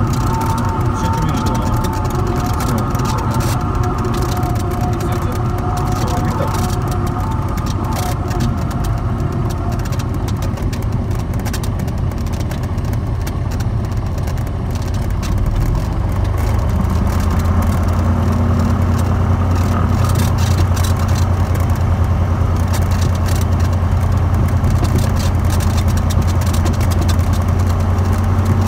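Cessna 182's piston engine and propeller turning at low power while the aircraft taxis, heard from inside the cockpit as a steady drone. About halfway through, the low hum gets louder and steadier.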